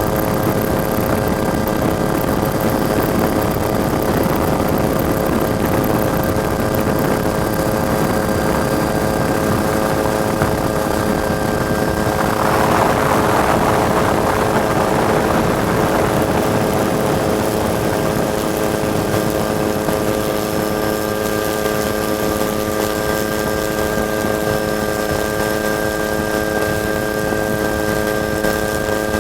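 Helicopter running steadily, a constant mix of engine whine and rotor noise at an unchanging pitch. About halfway through, a rush of noise swells and fades over a few seconds.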